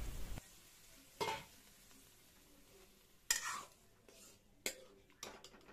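A spatula stirring chickpeas in their cooking liquid in a metal pan: a few short, soft scrapes against the pan, with a faint sizzle that stops about half a second in.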